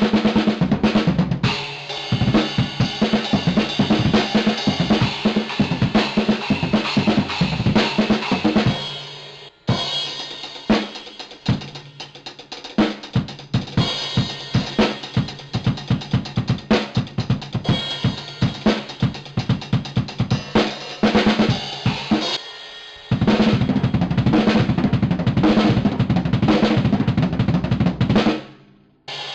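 Drum kit played fast: bass drum, snare and cymbals struck in a dense beat, with a short break about nine and a half seconds in and a brief stop near the end before the playing picks up again.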